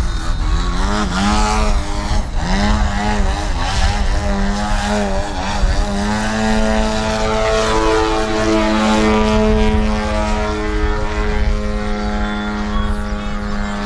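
Radio-control aerobatic plane's nitro engine and propeller. The pitch swoops up and down again and again as the throttle is worked through 3D manoeuvres, then holds a steadier note in the second half.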